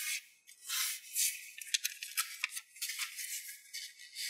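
Origami paper rustling and crinkling as hands crease and smooth it, with a quick run of sharp paper crackles in the middle.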